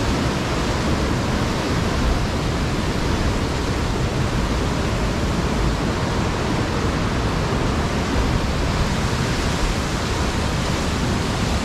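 Waterfall rushing: a steady, loud, unbroken rush of falling white water over rocks.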